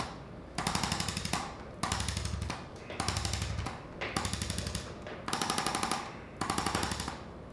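A handheld electric percussion tool running in short bursts of rapid pulses, about one burst a second with brief gaps between.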